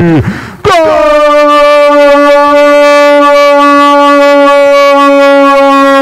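A sports commentator's long, drawn-out "gooool" cry, held on one steady pitch for several seconds after a quick breath.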